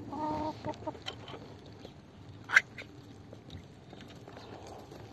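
Chickens clucking, with a short call at the start. About halfway through comes one sharp metallic crack as the ring-pull lid of a tin can is broken open and peeled back.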